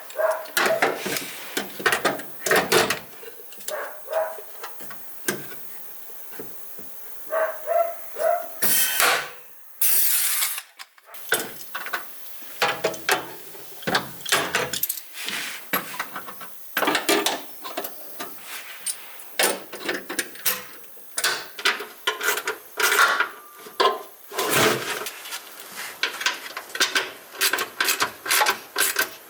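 Hand tools scraping and knocking on the car's steel bodywork in irregular strokes, as paint and rust are worked off, with a short loud hiss twice around the ten-second mark.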